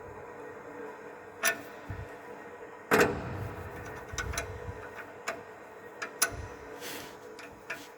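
Irregular knocks and clicks in heating system pipes, the heating fault being diagnosed. The loudest knock, a thud with a low rumble after it, comes about three seconds in. Smaller clicks follow at uneven gaps over a steady faint hum.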